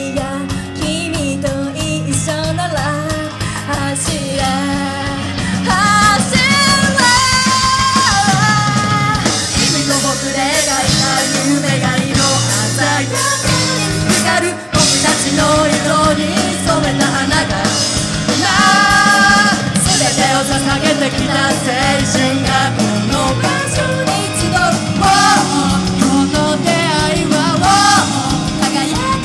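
Live rock band: a female lead voice singing over keyboard, electric guitar, bass and drum kit. The band gets louder about six seconds in, with a brief break about fifteen seconds in.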